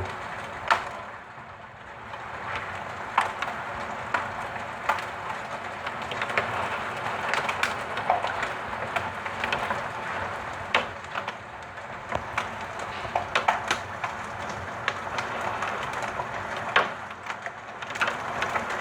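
A heavy downpour with hail: a steady rush of rain, with hailstones cracking irregularly against hard surfaces, some strikes sharper and louder than the rest.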